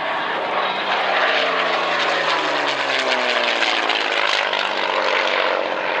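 North American P-51D Mustang's Packard-built Rolls-Royce Merlin V12 running hard in a low, fast flypast, its engine note dropping steadily in pitch for a few seconds as the aircraft passes by.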